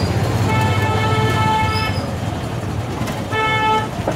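A vehicle horn honks twice, a long honk of about a second and a half and then a short one, over the low steady hum of a rickshaw engine.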